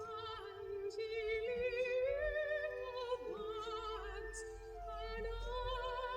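Record player playing a vinyl record of classical-style operatic singing, a high voice with wide vibrato over accompaniment.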